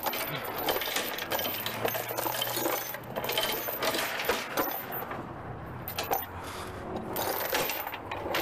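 Steel tie-down chain clinking and rattling as it is handled and pulled across the trailer deck: a run of quick metallic clinks, busiest in the first half.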